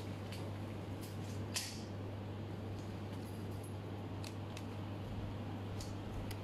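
Quiet room tone: a steady low hum with a few faint, scattered clicks and taps.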